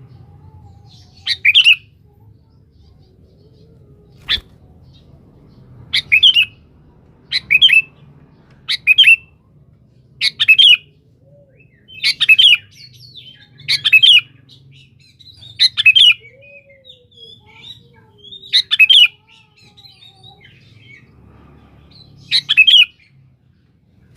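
Sooty-headed bulbul (kutilang) giving short, loud, clipped calls, about ten in a row, one every second and a half to two seconds. A single sharp click comes about four seconds in.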